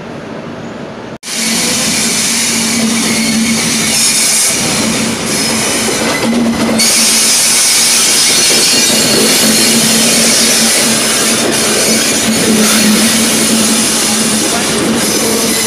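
Indian Railways WCAM-series electric locomotive and its train rolling past close by into a platform: loud wheel rumble and squeal on the rails with a steady low hum. This starts abruptly about a second in, after a quieter locomotive hum.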